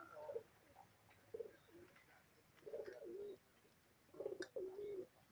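Domestic pigeon cooing softly in three low, wavering phrases, the last the loudest.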